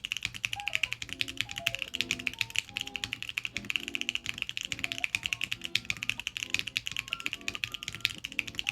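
Fast, continuous typing on a Mode Sonnet mechanical keyboard with Jwick Black Lotus switches: a dense, steady stream of key clacks, with background music underneath.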